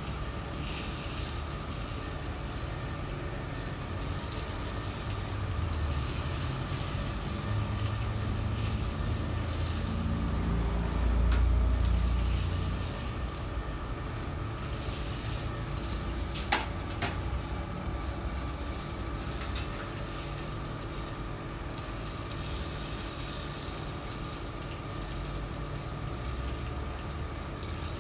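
Steady hiss and hum of a street-food kitchen, with a low rumble that swells about ten seconds in and fades, and one sharp click a little past halfway.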